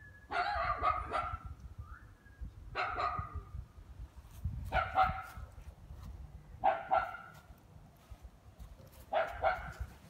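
A dog barking in five short bouts about two seconds apart, over a low rumble.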